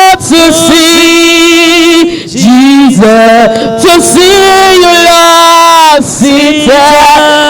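Gospel worship singing: a voice holds long, slightly wavering notes and slides between them. The recogniser catches no words.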